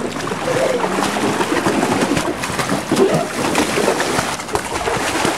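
Water splashing and sloshing as children move and play in a shallow paddling pool, with a few soft low calls in the background.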